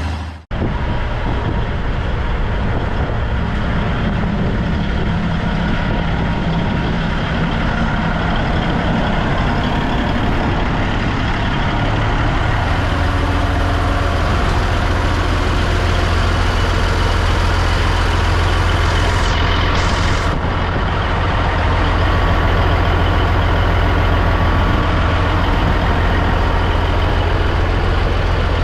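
Big Bud articulated farm tractor's Caterpillar diesel engine running with a steady, heavy drone, getting a little louder partway through.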